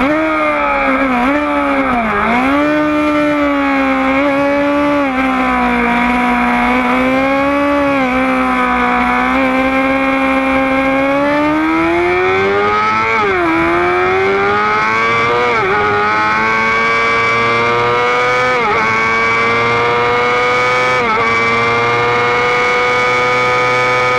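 Sport motorcycle engine heard from a camera on the bike, its revs dipping and picking up again through a series of bends. Then it accelerates hard through the gears: four upshifts, each a quick drop in pitch followed by a rising whine, holding high revs on the straight.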